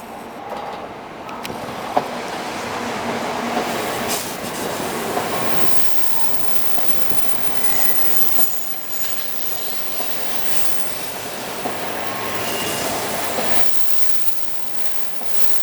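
Tokaido Shinkansen train rolling into the platform and braking, a steady rush of wheel and running noise with faint brief squeals from the brakes and wheels. The noise falls away sharply near the end as the train comes to a stop.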